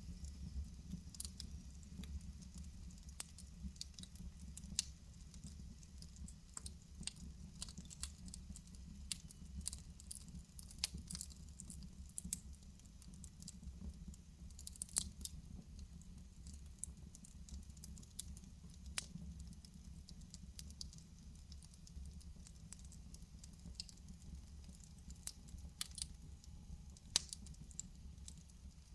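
Wood fire burning in a fireplace: frequent, irregular sharp crackles and pops over a low, steady rumble of the flames.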